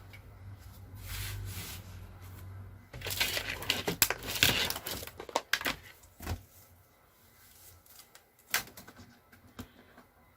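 Handling noises of a TV being worked on: a low hum at first, then a busy stretch of rustling and sharp clicks about three seconds in, followed by a few single knocks.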